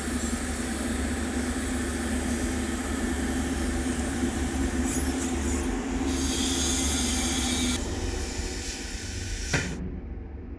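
TIG welding arc on steel pipe hissing steadily during a root pass, over a steady low hum. Near the end there is a click and the hiss cuts off suddenly.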